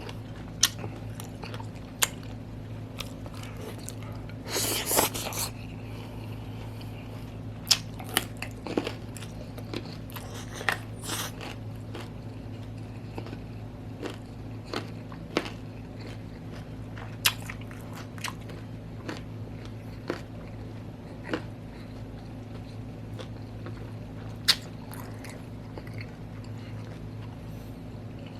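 Close-up sounds of a person chewing and biting food, with scattered wet smacks and clicks and a louder crunch about five seconds in. A steady low hum runs underneath.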